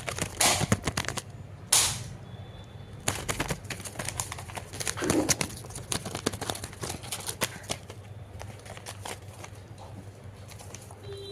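Hands opening and handling small toy packaging: a run of irregular crinkles, clicks and taps, with a couple of louder rustles in the first two seconds.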